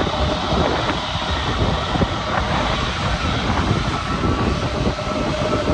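Jet airliner engines running, heard as a steady rush with a faint steady whine, under heavy wind buffeting on the microphone.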